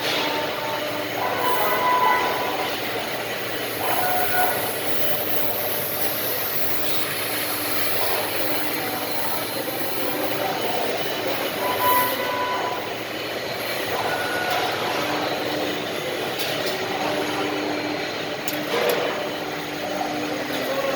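CNC router running and cutting wood: steady machine noise with squealing tones that come and go, and a few short sharper cutting noises.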